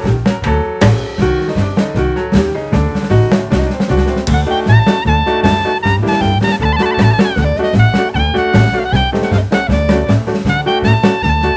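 Background music with a steady drum and bass beat; a brass melody, saxophone or trumpet, comes in about five seconds in.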